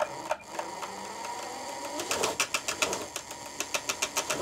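Motor-driven 3D-printed plastic jet-engine fan spinning up, with a rapid, even clicking rattle that sets in about two seconds in and repeats several times a second.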